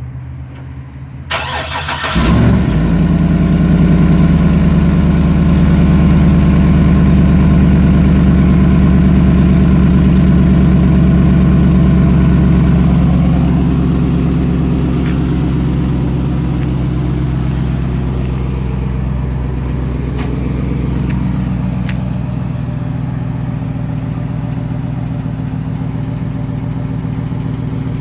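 2008 GMC Sierra Denali's 6.2 L L92 V8 cranked and catching about two seconds in, then running at a steady, loud cold-start fast idle that eases off somewhat about halfway through. The exhaust has a leak just ahead of the secondary catalytic converter and the resonator deleted.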